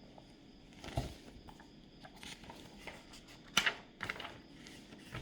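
Quiet handling noises: scattered light rustles and taps, the two sharpest about a second in and past three and a half seconds.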